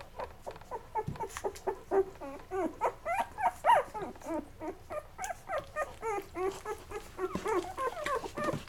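Eleven-day-old chocolate Labrador puppies squeaking and whimpering as they nurse, a steady stream of short high-pitched squeals, several a second.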